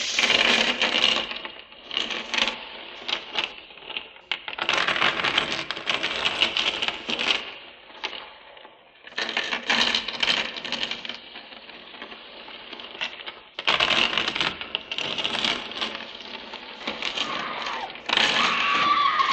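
Metallic rattling and clattering in bursts of a few seconds with short lulls between, made of many fine clicks, as a recorded sound effect. Near the end a wailing voice rises and falls over it.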